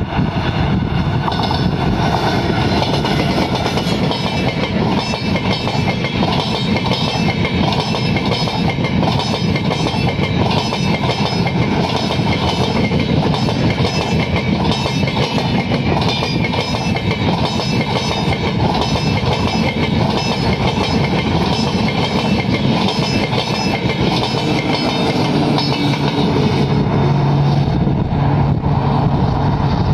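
A passenger train of red-and-grey LHB coaches passing close by: a steady rush of wheels on rail with a regular clickety-clack from the wheels over rail joints. Near the end a steady low hum joins it as the power car at the rear of the train goes past.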